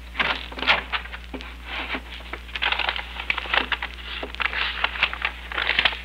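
Paper rustling and crinkling in irregular bursts: a radio sound effect of a note being handled and unfolded.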